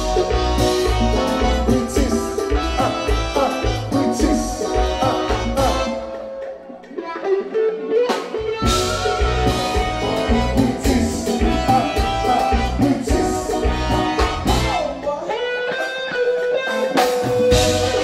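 Live Haitian konpa band playing: an electric guitar (a Fender Stratocaster) over drums and bass. About six seconds in, the drums and bass drop out for about two seconds, leaving the guitar, and then the full band comes back in.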